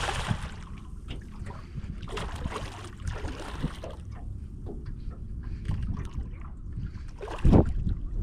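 Hooked redfish splashing at the surface beside a boat as it is fought on rod and line, with a burst of splashing at the start and more splashing about two to three seconds in. Wind buffets the microphone with a low rumble throughout, and there is a sudden loud low burst near the end.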